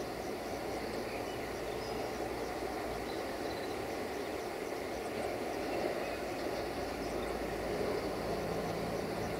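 Steady distant rumble of an approaching Sulzer-engined 060-DA (LDE2100) diesel locomotive hauling a freight train, with a low engine hum growing in near the end.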